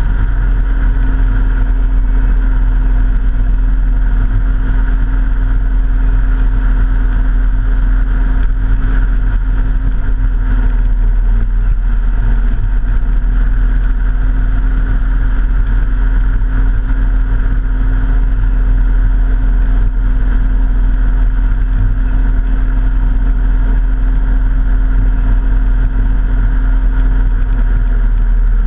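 Vehicle engine running at a steady pitch on the move, over a heavy low rumble of wind and road noise. The pitch sags slightly about twelve seconds in and again near the end.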